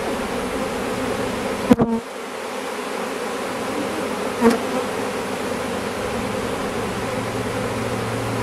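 Honey bee swarm buzzing as a steady, dense hum. Two brief, louder buzzes come about two seconds in and again about four and a half seconds in.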